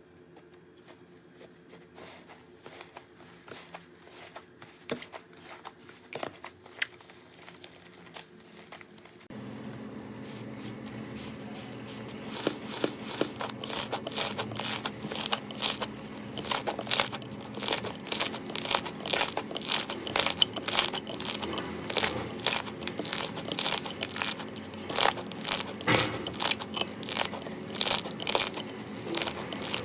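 Slime being squeezed and pressed by hand, giving a run of crackling, popping clicks. They are soft at first, then louder and denser after an abrupt change about nine seconds in, over a faint steady hum.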